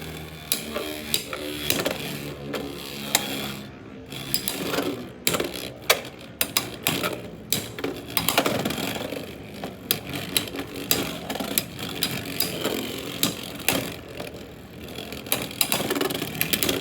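Beyblade X tops spinning against each other in a plastic stadium: a steady whir broken by many sharp clacks as they collide, several a second at the busiest moments.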